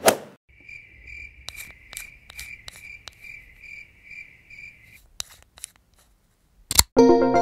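A cricket chirping in an even pulsing rhythm, about two and a half chirps a second, stopping about five seconds in, with scattered sharp ticks around it. Synthesizer music starts just before the end.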